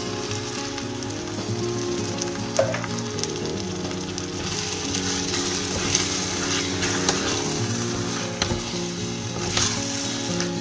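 Chopped canned tomatoes sizzling as they hit hot minced beef in a saucepan, with a wooden spoon stirring and now and then knocking the pan. The sizzle grows louder about halfway through as the tomatoes are stirred in, over soft background music.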